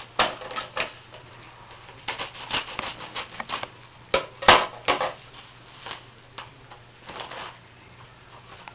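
Irregular rustling and crinkling of mail packaging handled and opened by hand to get a card out, with one sharp click about four and a half seconds in.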